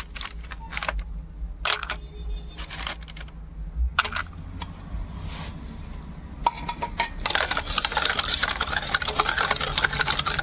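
Ice cubes clinking against a steel pot of curd, a few separate knocks in the first seconds. About seven seconds in, a hand churner (dal ghotni) starts spinning in the pot, and a fast, continuous rattle of ice against the steel follows as the curd is churned into lassi.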